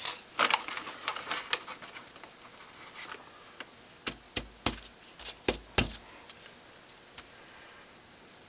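Plastic cups being handled and set down on a paper-covered bench: scattered light clicks in the first second or so, then a quick run of about six sharp knocks a little past halfway.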